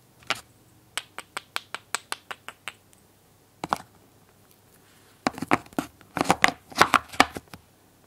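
Small painted wooden toy pieces clicking and tapping against each other as they are handled: a quick run of even taps, about six a second, then a single knock and a denser clatter of wood on wood near the end.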